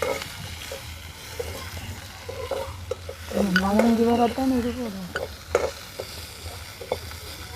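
Onions and green chillies frying in hot oil in a pan, sizzling steadily, with a spoon stirring and scraping in short clicks. A person's voice sounds briefly about halfway through.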